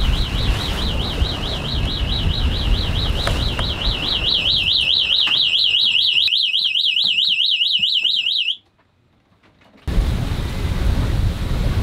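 AIS alarm on a sailing yacht sounding a fast warbling electronic tone, about four warbles a second, over wind and sea noise. It cuts off suddenly after about eight and a half seconds.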